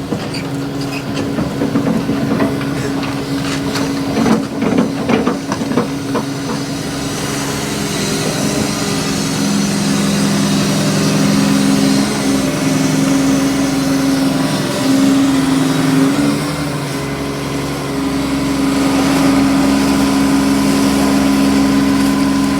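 Engine of a heavy machine running steadily, its pitch shifting briefly about two-thirds of the way through, with a few knocks in the first several seconds.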